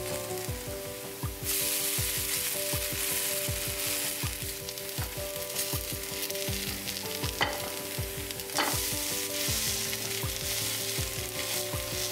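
Korean potato pancakes (gamja jeon) sizzling in hot oil in a nonstick skillet as they are turned with a plastic spatula. The sizzle swells about a second and a half in, and the spatula scrapes the pan twice in the middle.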